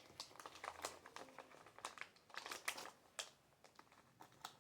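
Faint, irregular crinkling and crackling of a toy blind packet's wrapper being handled and opened, with a few sharper clicks.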